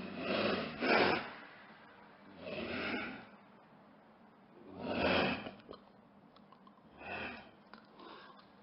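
Lynx giving a series of short, harsh hissing exhalations, about six in all, separated by pauses of one to two seconds. The loudest come about a second in and about five seconds in, and the last is faint.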